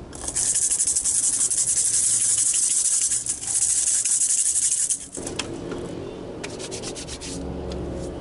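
A rattle shaken rapidly and continuously for about five seconds, a dense high hissing shake, then stopping abruptly.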